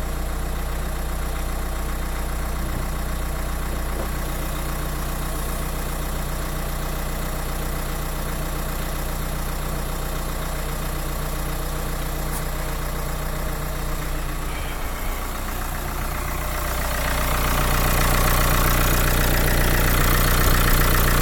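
Dacia Duster 4x4's engine and drivetrain running steadily, growing louder about three-quarters of the way through. The sound is the transmission noise the owner is documenting.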